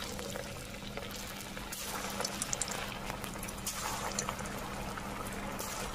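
Shrimp-stuffed fig koftas deep-frying in hot mustard oil in an aluminium karai: a steady sizzling hiss with scattered crackles and pops. It flares up about two seconds in and again near four seconds, as more koftas go into the oil.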